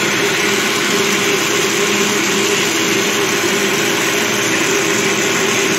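Countertop blender motor running steadily, puréeing a tomato, chili and onion salsa.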